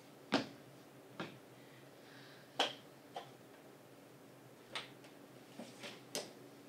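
A series of sharp, separate clicks or knocks, about eight of them at irregular spacing, the loudest near the start and about two and a half seconds in, over a faint steady hum.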